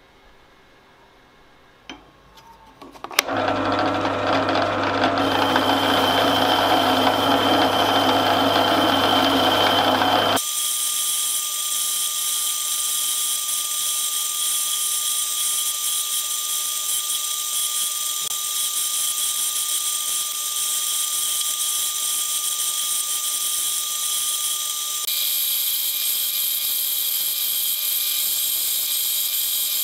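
Drill press spinning a wire cup brush, with a chisel held against the bristles to scrub off rust. The sound comes in suddenly about three seconds in and shifts abruptly twice.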